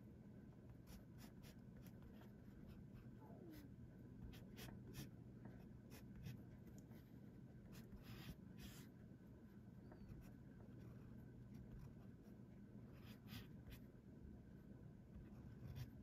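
Parker 50 Falcon fountain pen's integrated nib scratching faintly across paper in many short strokes, coming in little clusters as a small drawing is sketched in dashes.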